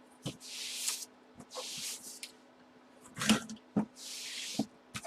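Cardboard box and packaging being opened by hand: three rustling, scraping passes with a few sharp knocks between them, over a faint steady hum.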